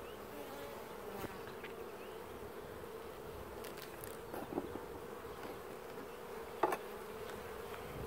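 Honeybee colony in an open hive giving a steady hum, with a few sharp clicks and knocks as a hive tool pries the next frame loose, the loudest near the end.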